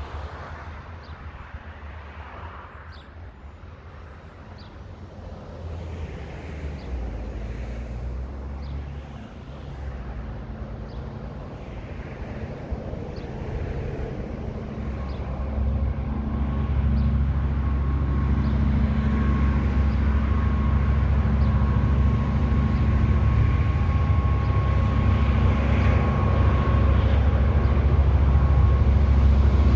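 A diesel-hauled freight train approaching and passing. The low engine hum grows steadily louder through the second half, and near the end the container wagons are rolling by.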